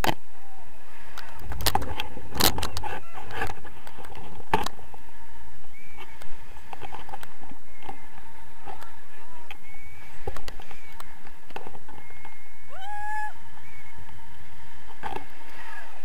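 Wind buffeting the microphone of a selfie-stick camera during a tandem paraglider takeoff, with knocks and scuffs of the harness and running steps in the first few seconds. About thirteen seconds in, a short rising high-pitched sound stands out over the wind.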